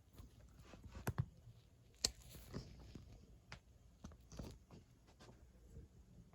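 Casablanca Delta II ceiling fan running quietly on speed 1, a faint low hum, with a handful of irregular clicks and knocks, the loudest about two seconds in.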